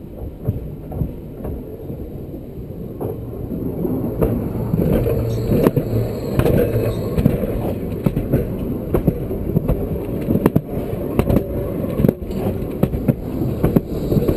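Nottingham Express Transit tram approaching and rolling past at track level, growing louder over the first four seconds or so. Then a dense low rumble with its wheels knocking and clattering sharply on the rails.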